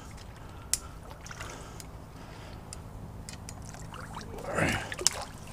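Shallow water sloshing around a wading angler as he pushes into mangrove branches, with a few sharp clicks and one louder swish and snap about four and a half seconds in.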